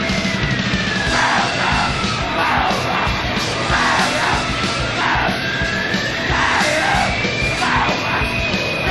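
Live Japanese noise and hardcore punk recording: a dense wall of distorted noise with yelled vocals. A high whine sinks in pitch early on, then slowly climbs again in the second half.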